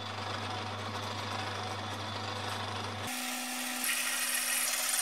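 Drill press running a twist drill into the wrench's metal pivot pin: a steady motor hum with cutting noise. About three seconds in, the hum steps up to a higher pitch and a high cutting whine comes in near the end.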